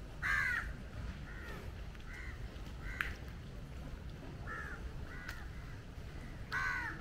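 Crows cawing: a loud harsh caw about half a second in and another near the end, with fainter caws between. A low steady rumble runs underneath, and there is one sharp click about three seconds in.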